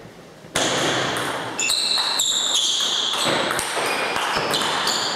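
Table tennis rally: the ball clicking off the bats and the table, with high squeaks of shoes on the wooden floor. A steady loud hiss starts suddenly about half a second in.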